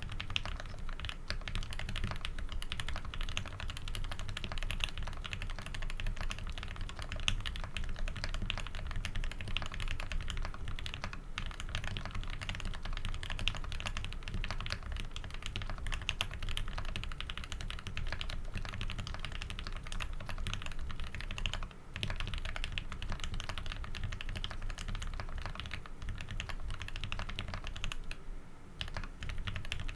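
Fast, continuous typing on a Tx60 v2 custom mechanical keyboard with a brass plate, PBT keycaps and lubed Tealios v2 linear switches in Cherry top housings. The keystrokes run as a dense stream of clicks, with short pauses about two-thirds of the way through and again near the end.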